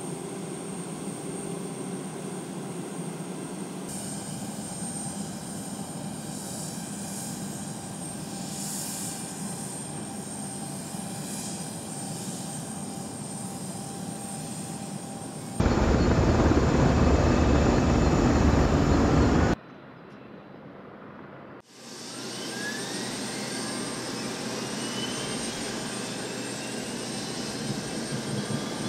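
Mitsubishi MRJ regional jet's turbofan engines on the ground, heard in several edited shots: a steady engine noise, a much louder stretch of a few seconds past the middle, and near the end a turbine whine rising in pitch as the engines spool up.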